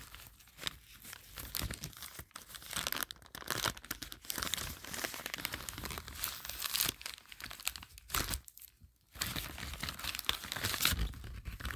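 Plastic poly mailer bag being torn open and crinkled by hand, an irregular rustling and crackling with a short pause about three-quarters of the way through.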